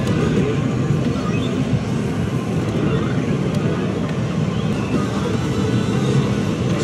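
Loud, steady din of a pachislot hall: many slot machines' sound effects and music blending with a low rumble of the crowded room.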